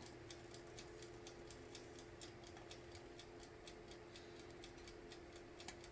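Faint rapid ticking, about five ticks a second, from a convection oven heating up with a shrink-wrapped glass can inside, over a steady low hum.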